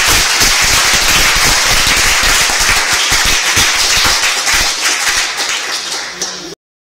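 Audience applause: many people clapping together, easing off a little near the end and then cutting off abruptly.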